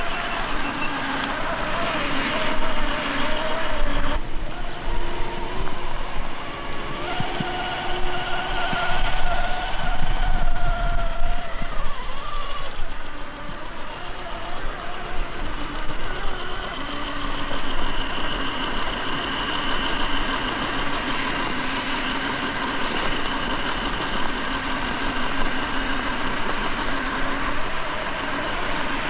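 Traxxas TRX-4 Sport RC crawler's sensored brushless motor and geared drivetrain whining as it creeps over wet rock, the pitch rising and falling with the throttle.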